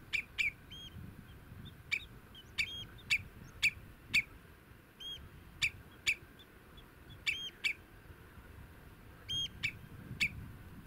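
Common redshank giving alarm calls: short, sharp notes repeated irregularly about one to two a second, with a few slightly longer arched notes between them, the anxious calling of a redshank with young nearby.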